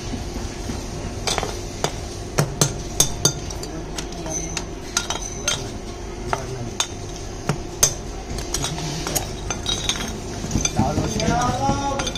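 Freshly sand-cast brass diyas clinking against each other and against steel tongs as they are picked up and set down, a run of irregular sharp metal clinks.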